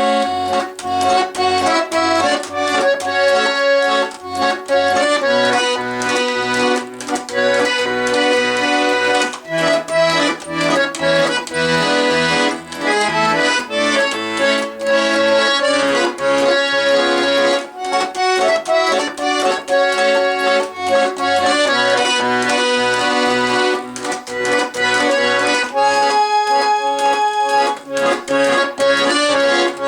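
Russian garmon (button accordion) playing a song tune: a melody in the right hand over a steady bass-and-chord beat in the left, with a few longer held notes near the end.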